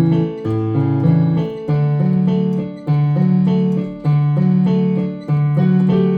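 Keyboard playing a hymn accompaniment: held chords over a bass line, with a new chord struck about every second and a bit.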